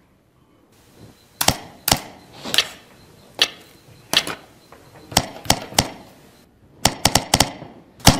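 About a dozen sharp percussive hits from the demo video's soundtrack, played over the room's speakers, with a quick cluster of hits near the end.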